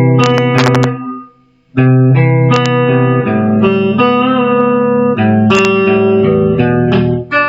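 Guitar playing a slow riff of single picked notes, mostly on open strings, letting each note ring into the next, with a short break about a second and a half in.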